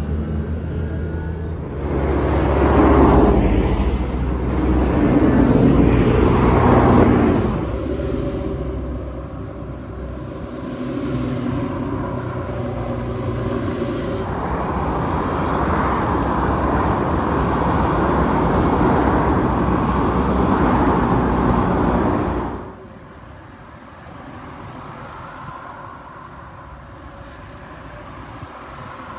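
Tractor engines running on the road, with two loud swells in the first few seconds and then steadier running. The sound changes abruptly three times and drops much quieter about three quarters of the way through.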